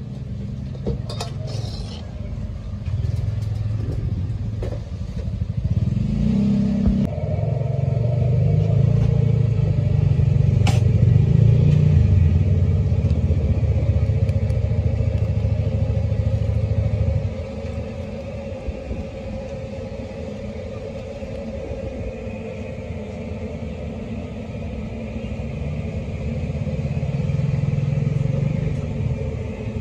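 Low rumble of a motor vehicle engine running close by, swelling for about ten seconds in the middle and then easing off, with a few sharp clicks.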